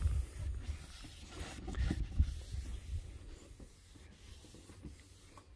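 Microfiber towel rubbing and wiping across a wet plastic headlight lens, clearing off the slurry after wet sanding with 800 grit, in irregular strokes that are loudest about two seconds in. A low rumble runs underneath.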